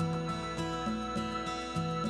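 Background music: a gentle plucked-string melody, notes changing every fraction of a second over a steady sustained tone.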